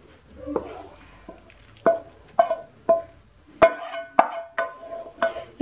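A spoon knocking against the rim of a frying pan to empty out the zucchini filling: about eight sharp knocks, roughly two a second, each leaving a brief ringing tone.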